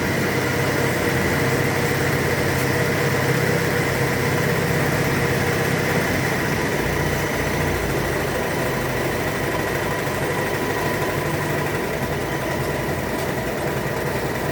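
Willys MB's four-cylinder Go-Devil flathead engine, just revived, idling steadily with a low pulsing rumble that grows a little heavier about halfway through.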